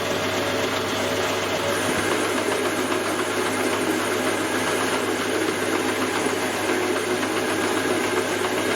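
Metal lathe running steadily while turning down a small metal workpiece with a freshly tipped cutting tool taking a light cut.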